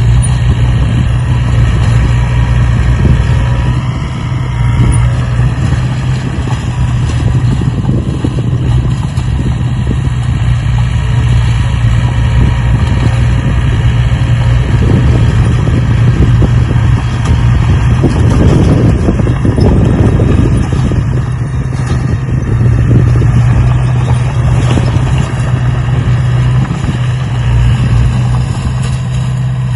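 A motor running steadily with a low hum, swelling louder for a few seconds past the middle.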